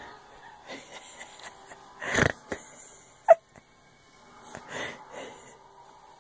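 Dog snorting and sniffing at a bedsheet, with one loud snort about two seconds in and a short squeak about a second after it.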